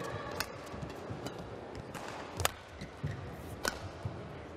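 Badminton rally: rackets striking the shuttlecock with sharp cracks about one to two seconds apart, the loudest near the end, over dull thumps of the players' footwork on the court.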